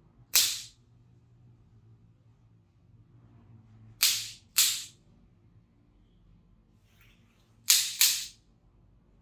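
Five sharp cracks during a chiropractic treatment: one about half a second in, then two pairs around four and eight seconds, each cut short with a quick fade.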